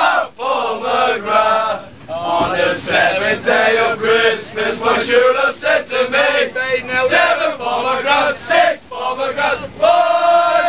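A group of male football supporters chanting and singing a terrace song together, loud and unaccompanied, with a long held note near the end.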